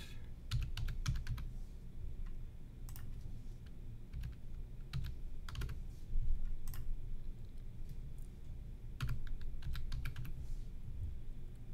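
Typing on a computer keyboard: short clusters of keystrokes with pauses between them, as numbers are keyed in one after another.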